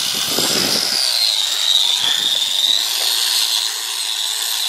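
Handheld electric power tool polishing a wheel, running steadily with a high whine that drifts slightly up and down in pitch.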